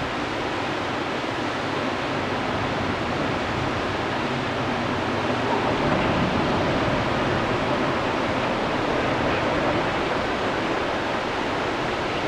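Whitewater river rapids rushing: a steady, dense noise of churning water.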